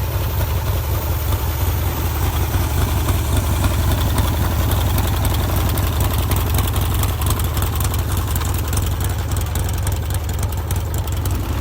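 A custom-built motorcycle's engine idling steadily with a fast, even pulse.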